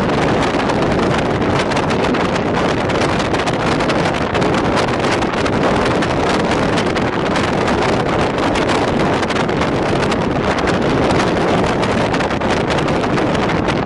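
Steady wind noise buffeting the microphone over the continuous running noise of a moving passenger train.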